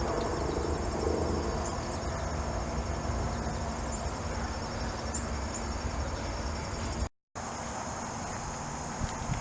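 A steady chorus of insects trilling high over a low rumble. The sound cuts out for a moment about seven seconds in, then resumes.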